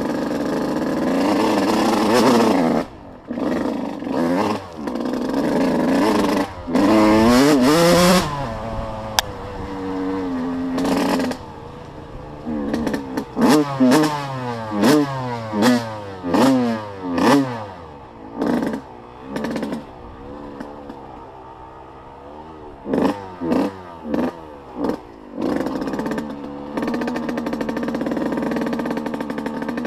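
Off-road vehicle engine running and revving, its pitch rising and falling, with a run of short throttle blips about one a second in the middle.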